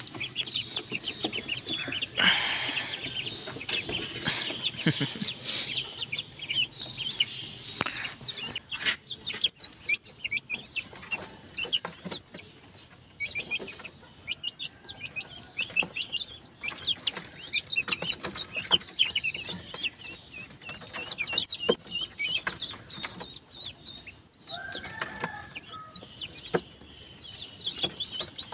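Chicks and ducklings peeping constantly in short, high, rapid calls. A few sharp knocks come from the wire-mesh cage as they are handled.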